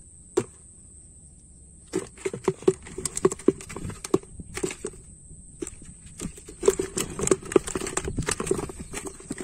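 Live fish flapping and knocking inside a plastic bucket as they are dropped in: one knock about half a second in, then from about two seconds on a run of irregular quick slaps and knocks against the bucket's walls and bottom.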